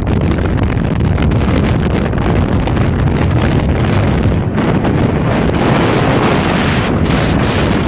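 Loud, steady wind noise as strong mountain wind (around 40 mph) blows across the microphone, a dense rushing sound heaviest in the low end.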